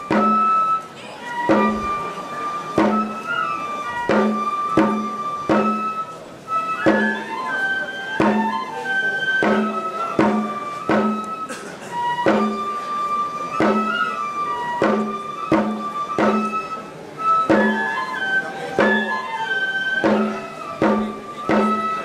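Japanese shrine festival music: a bamboo flute playing a melody of held notes over a steady drum beat.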